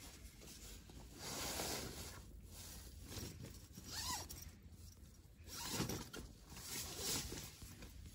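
A zipper pulled in several short strokes, with pauses between them.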